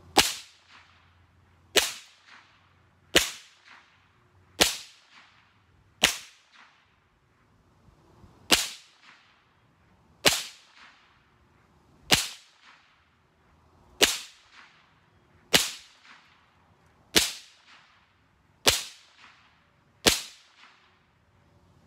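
GSG 522 semi-automatic .22LR rifle fired thirteen times at a slow, even pace, about one shot every one and a half seconds, each a sharp crack that dies away quickly.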